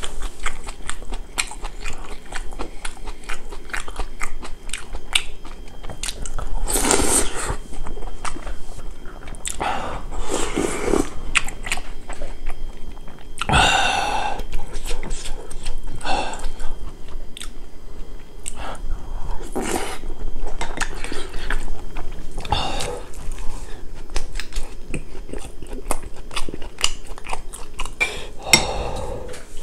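A person chewing and crunching kimchi and boiled pork close to the microphone: dense, rapid wet mouth clicks and crunches, with a few louder, longer noisy sounds in between.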